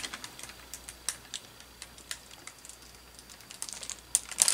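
Scattered light clicks and crackles of hands working at the oven door, with a quick cluster of louder clicks near the end.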